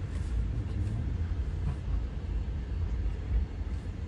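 A steady low rumble that wavers in level, with little above it.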